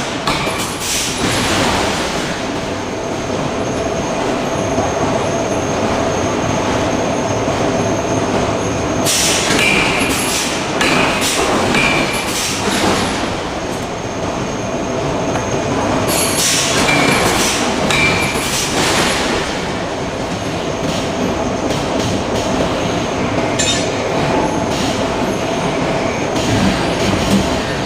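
Forge-shop machinery running loudly: a continuous mechanical rumble with high metallic squeals and knocks at several points.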